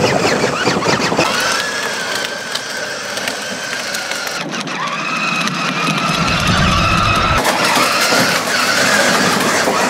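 Grave Digger 24-volt Power Wheels ride-on truck driving, its electric drive motors and gearboxes giving a steady whine over the rumble of its wheels rolling on concrete.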